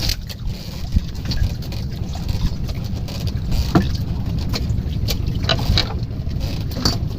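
Wind buffeting the microphone as a constant low rumble, with a few scattered sharp clicks and knocks.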